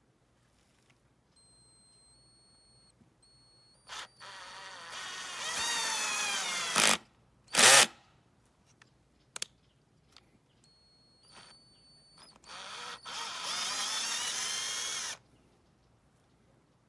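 Cordless 20V drill driver's motor running twice for a few seconds each, rising in pitch as it speeds up, with two short louder bursts and a few clicks between the runs.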